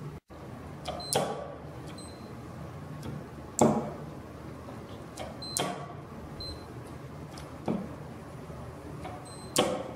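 A Cedar NDID-150CN digital torque screwdriver being worked: five sharp clicks about two seconds apart, with several short high electronic beeps in between.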